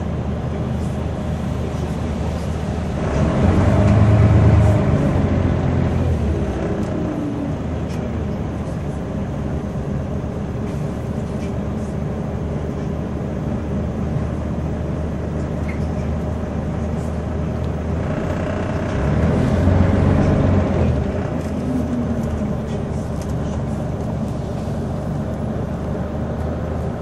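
Scania OmniCity single-decker bus heard from inside the saloon while under way: a steady engine and road drone. Twice, about three seconds in and again near twenty seconds, the engine pulls harder and louder, its pitch rising and then easing back.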